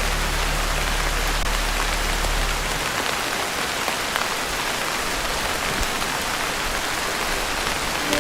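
Heavy rain falling steadily on a tin roof, an even hiss of drops. A low held note of background music sounds under it and stops about three seconds in.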